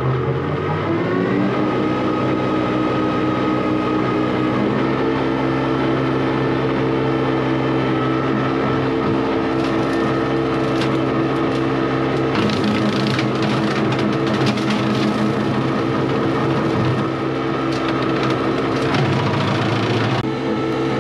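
Small tractor engine revving up over the first second or two, then running steadily at working speed to drive the bush hog. Intermittent crackles and snaps come over it about halfway through and again near the end.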